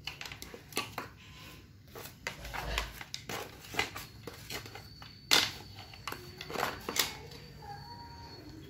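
Potting soil being worked around a plant in a pot with a plastic scoop: irregular scraping and crunching with sharp knocks, the loudest about five and seven seconds in.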